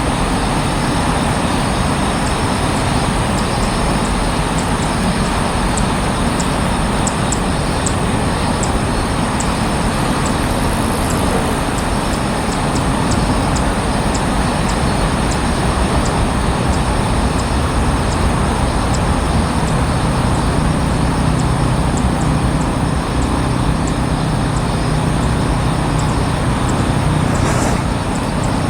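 Steady, loud rumbling background noise with no distinct events, like distant road traffic; a low hum grows a little stronger about twenty seconds in.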